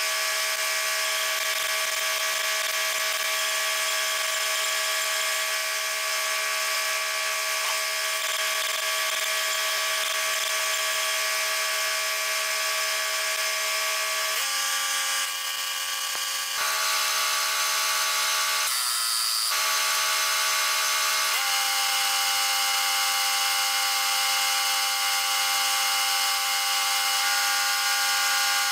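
Stick welding on a cracked skidder grapple cylinder ear: a steady crackle and hiss from the arc over an engine running at a constant speed. The engine's pitch steps down and back up a few times, then falls away right at the end as the welding stops.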